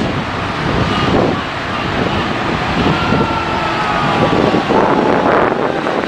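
Diesel engine of a 1982 MCI MC-9 intercity coach running as the bus drives past, with a faint whine that slides slowly down in pitch midway, and wind buffeting the microphone.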